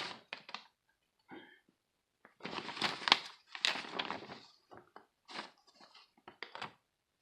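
Paper pages of a tool kit's instruction booklet rustling and crinkling as they are handled and turned, in irregular bursts with short pauses.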